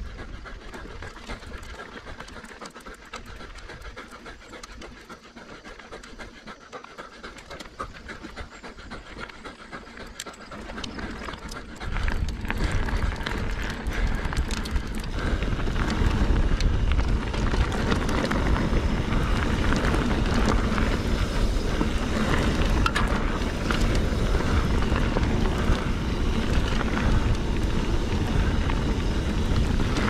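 A mountain biker panting hard. About twelve seconds in, a loud, steady rush of wind and tyre noise with a low rumble takes over as the bike rolls downhill.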